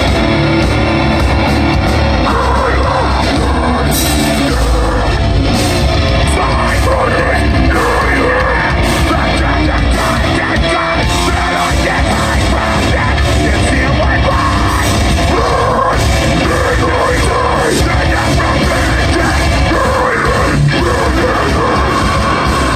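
Metalcore band playing live and loud: drums, distorted guitars and bass under two vocalists singing and yelling into microphones.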